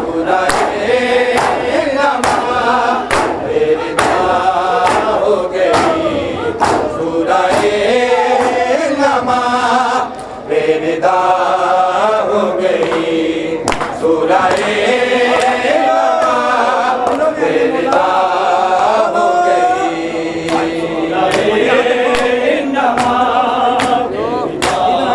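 Matam: a crowd of men beating their chests in unison, a steady slapping beat a little under two strikes a second, under a noha chanted by male voices in chorus. Both briefly drop out just after ten seconds in.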